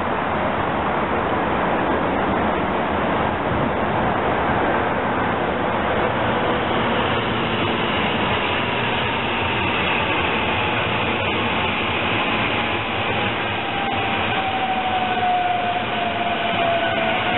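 SEPTA Silverliner V electric multiple-unit train passing: a steady rush of wheel and running noise, with a whine that slowly falls in pitch through the second half as the cars go by.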